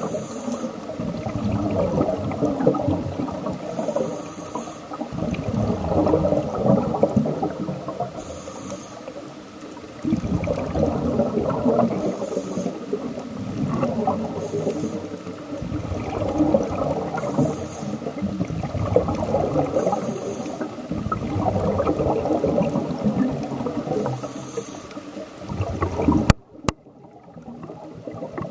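Scuba diver breathing through a regulator underwater, in a steady cycle about every four seconds. Each breath has a short high hiss on the inhale and a longer bubbling rush of exhaled air.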